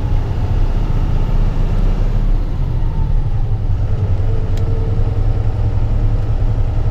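Inside the cab, the Cummins 6.7 diesel of a 2012 Freightliner rollback tow truck runs steadily while driving, a constant low rumble. A single faint click comes about halfway through as a button on the overhead light-bar controller is pressed.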